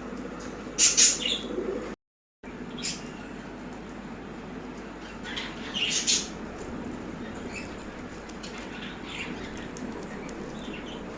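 Baazigar pigeons flapping their wings in two loud flurries, one about a second in and one around six seconds, with a few short chirps in between. The sound cuts out completely for a moment just after the first flurry.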